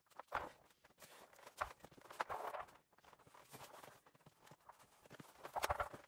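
Shuffling footsteps with irregular knocks and scrapes as a tall water heater tank is rocked and walked across the floor by hand. The clearest clusters come about two seconds in and again near the end.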